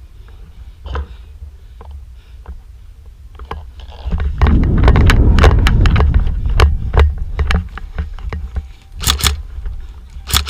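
Scraping and rumbling handling noise from a body-worn camera as the player moves, with scattered clicks of gear. Near the end come a couple of quick shots, then a rapid burst from an airsoft electric rifle begins.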